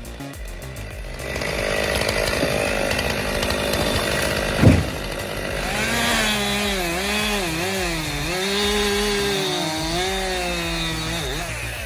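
Chainsaw cutting wood, its engine pitch repeatedly dipping and recovering as the chain bites into the cut. There is one sharp knock a little under five seconds in.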